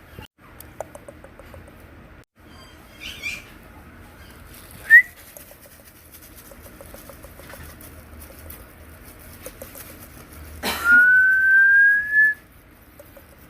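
Maltese puppy whining: a short high whine about five seconds in, then a longer, louder one near the end that rises slightly in pitch and lasts about a second and a half.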